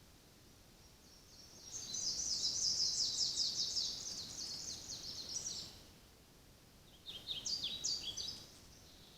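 Forest songbirds singing: a long, fast, high-pitched song phrase of about four seconds, then after a pause a shorter phrase of quick notes stepping downward.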